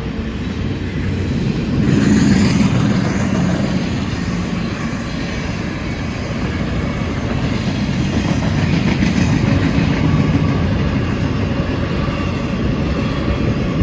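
CSX double-stack intermodal train cars passing at speed: a steady, loud run of steel wheels on the rails.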